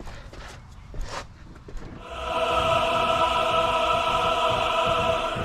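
Light clicks of tool handling, then about two seconds in a motor starts and runs with a steady whine of several pitches at once and a hiss above it.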